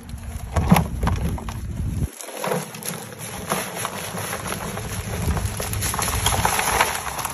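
Live crawfish being cleaned: a busy clatter of shells knocking against each other and the container, with pattering, splashing water.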